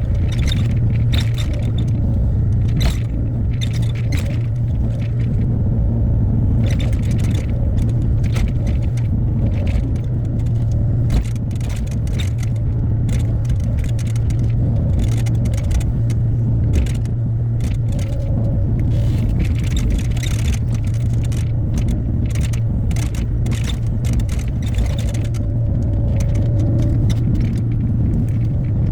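Hyundai HX60A mini excavator's diesel engine running steadily at working revs, with frequent short clicks, scrapes and metallic clatter from the machine at work.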